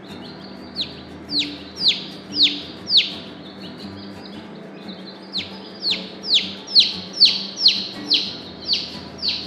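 A two-day-old chick peeping loudly: sharp, falling peeps about two a second, in two runs with a short pause a few seconds in.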